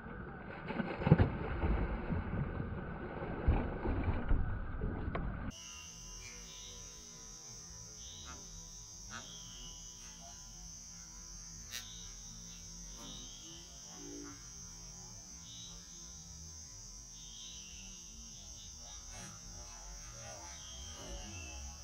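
A bass striking a topwater frog lure: loud splashing and thrashing of water for about the first five seconds. It then cuts off abruptly to a steady high-pitched drone over a faint low hum.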